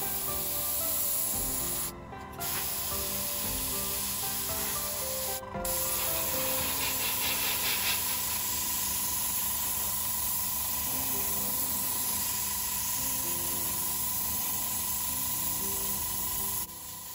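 Background music over a steady hiss of an airbrush spraying paint.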